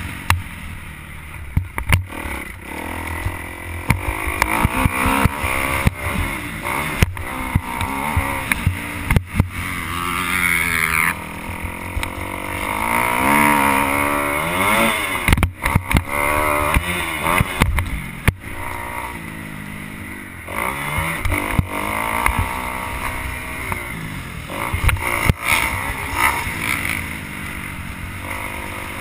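Motocross bike engine revving up and down as the bike is ridden round a dirt track, its pitch rising and falling repeatedly. Wind rumbles on the helmet-mounted microphone, with sharp knocks throughout.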